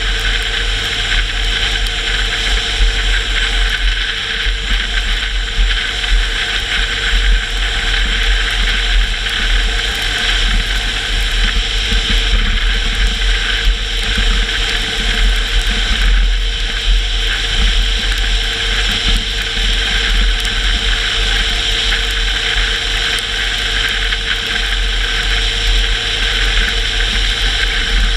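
A car driving at a steady pace on a wet road: a low, steady engine drone under constant tyre and road noise.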